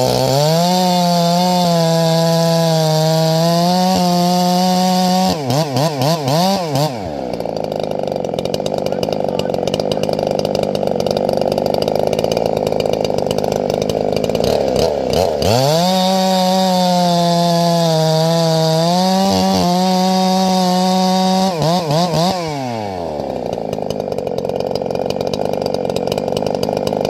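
Gas chainsaw bucking firewood in two cuts: each time it revs up and holds a steady high pitch for about five seconds, then warbles and drops back to idle. A second saw runs steadily underneath.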